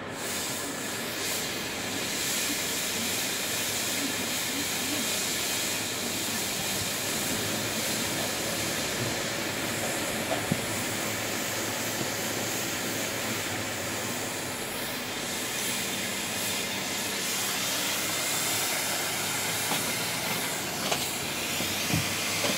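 Volvo street-cleaning truck and its gravel-collecting machinery running, a steady loud hiss as winter grit is picked up off the road. A couple of short clicks come about halfway through and near the end.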